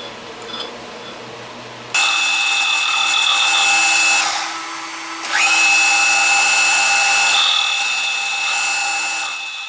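Metal lathe running with a low steady hum, then its cutting tool bites into a spinning aluminum tube about two seconds in, giving a loud, high-pitched ringing whine. The whine drops away for about a second midway and returns with a quick upward slide in pitch.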